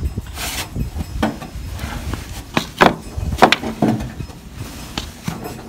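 Wooden straight-edge jig being handled and set down across a window sill: a series of separate light wooden knocks and scrapes.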